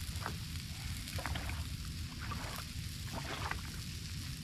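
Barracuda fillets frying in peanut oil on a small portable gas griddle, a steady sizzle, with several short scrapes of a knife working on a bread roll, over a constant low rumble.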